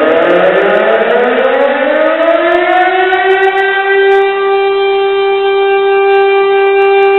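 Siren winding up, its pitch rising smoothly for about three and a half seconds and then holding one steady tone.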